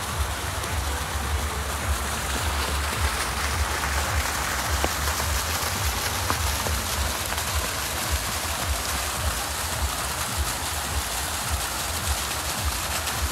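Pool fountain jets splashing steadily into the water, with a low rumble underneath.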